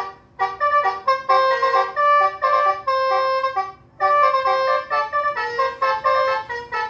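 Electronic 'basuri' telolet horn module playing a song melody through a toa horn speaker: a run of reedy, flute-like horn notes changing pitch every fraction of a second. The melody pauses briefly just after the start and again about four seconds in.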